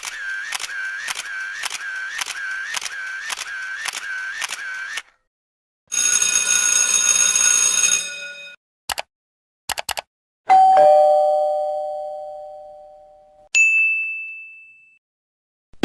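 A run of separate vlog sound effects. First a wavering electronic tone pulses about twice a second for five seconds, then a buzzy tone sounds for about two seconds, then come three quick clicks. Near the end, two struck chime-like tones, one low and one high, each ring and fade away.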